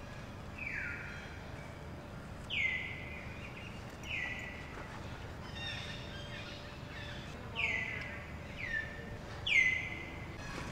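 An animal calling repeatedly: about six short high-pitched calls a second or so apart, each sliding down in pitch and then holding steady briefly, over a steady background hiss.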